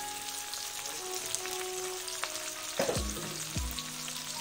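Chopped onions sizzling steadily in hot oil in a steel kadhai, with a couple of low knocks about three seconds in.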